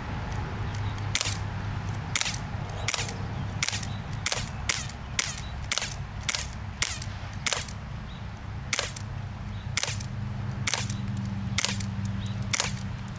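Smith & Wesson M&P 40 CO2-powered non-blowback airsoft pistol firing semi-automatically, about sixteen sharp pops in an uneven string, roughly one every half-second to second.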